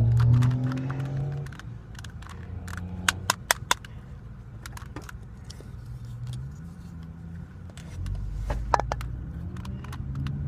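A motor vehicle's engine running past, its low hum loudest at the start and rising again near the end. About three seconds in there are four sharp clicks, with smaller clicks scattered through, the sound of a plastic Rubik's Cube being handled and turned.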